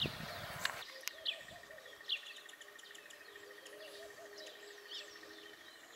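Small birds chirping: short, high chirps repeating roughly once a second, with a faint steady high hum underneath. A low rumble fades out about a second in.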